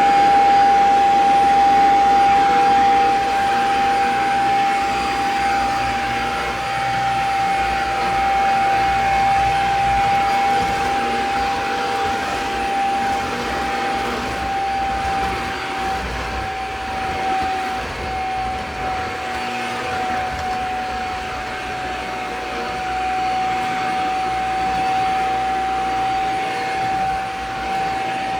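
Vacuum cleaner running steadily: a constant high whine over its rushing airflow.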